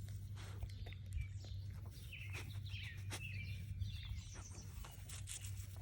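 Small birds chirping now and then, with scattered soft clicks and rustles over a steady low hum.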